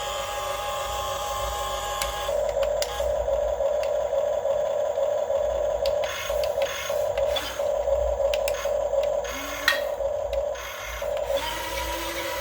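Huina 1550 RC excavator's small electric motors whining as it works, stopping and starting several times, with a few sharp clicks and scrapes of metal parts and tracks.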